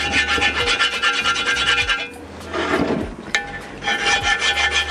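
Hand file scraping in rapid short strokes along the edge of a bearing seat in a cast-metal anchor winch housing, chamfering off nicks, with a ringing note under the strokes. The filing stops about two seconds in and starts again about a second and a half later.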